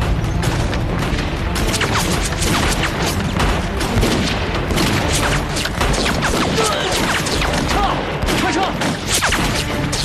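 Battle gunfire: many rifle shots in quick succession, overlapping, with booming blasts under them.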